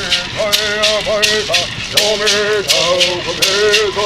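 Singing accompanied by a hand rattle shaken in a steady beat, about three strokes a second, under long, wavering sung notes.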